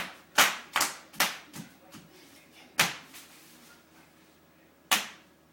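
Bubble wrap popping under a toddler's jumping feet. There are six loud, sharp pops: four come in quick succession in the first second and a half, one about three seconds in and one near the end, with a few fainter pops in between.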